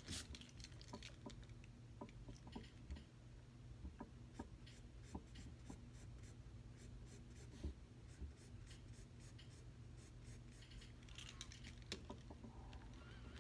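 Faint pencil scratching on sketchbook paper: short light strokes and small taps as a head outline is drawn, over a low steady room hum.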